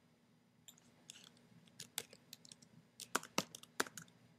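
Typing on a computer keyboard: a run of irregular keystrokes, a few louder ones about three seconds in, as a search is typed.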